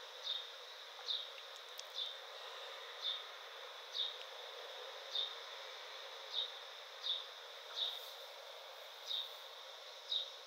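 A small bird chirping: short high chirps, each dipping slightly in pitch, repeated about once a second at uneven intervals over a faint steady hiss.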